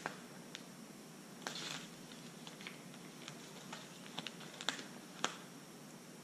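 Paper backing being peeled off an adhesive vinyl paint mask: light, scattered ticks and crackles as the adhesive lets go, with a brief rustle about a second and a half in.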